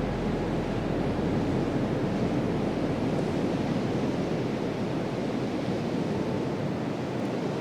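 Ocean surf washing in, a steady, even rush of waves with no separate crashes standing out.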